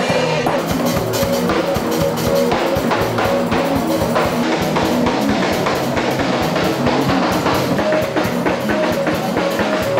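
Live band music with a steady drum-kit beat and guitar.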